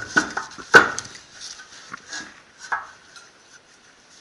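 Metal clanks and knocks as the aluminium hub carrier and steel tools are moved about and set down on a metal workbench: a handful of sharp clanks in the first three seconds, the loudest about three-quarters of a second in, then it goes quiet.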